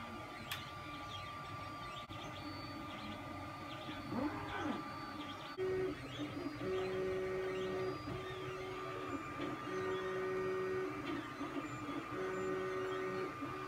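FDM 3D printer running, its stepper motors sounding as a string of short steady tones, each about a second long, over a steady high hum. The stepper tones start about halfway through.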